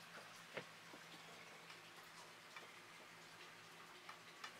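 Near silence: faint room tone with a steady low hum and a few soft clicks, the clearest about half a second in and one near the end.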